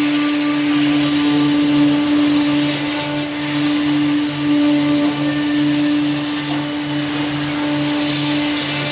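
Electric woodworking saw machine running steadily: a constant motor hum over a wide hiss, with a lower throb pulsing about two to three times a second.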